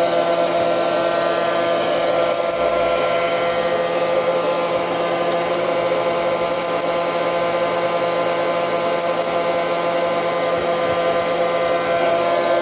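Britânia robot vacuum cleaner running: a steady motor whine with several held tones over a fan hiss, unchanging throughout, with a few faint ticks.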